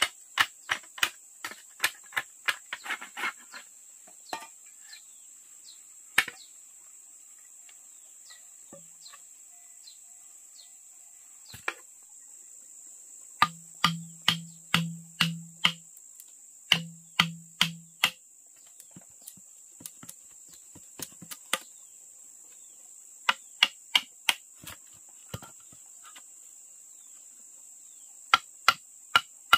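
Sharp knocks, as of a hand tool striking something hard, come in runs of several strikes about two to three a second with pauses between. A few strikes in the middle carry a short low hollow tone. Under them runs the steady high drone of insects.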